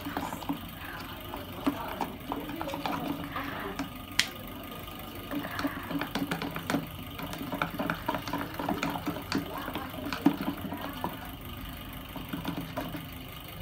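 Spoon stirring a runny glue-based slime mixture in a container, heard as a run of irregular small clicks and taps.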